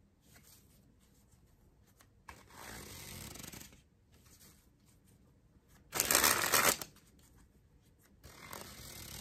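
A deck of USPCC playing cards being spread and closed in flourishes: soft rustles of cards sliding over one another, with a much louder rush of cards about six seconds in.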